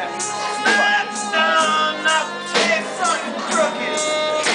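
A small band playing live: acoustic guitar, fiddle and drums, with a drum hit about twice a second under a sliding melody line.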